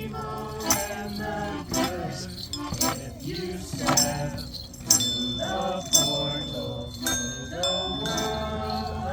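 Music with jingling bells and a sharp strike about once a second; in the second half, high ringing bell-like tones are held over it.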